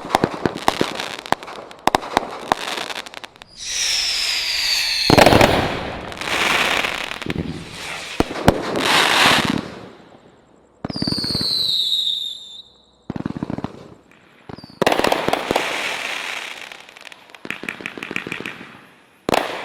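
Consumer fireworks from a sampler assortment going off in a string of short clips: rapid crackling, rushing bursts and two sets of falling whistles, one about four seconds in and one near the middle.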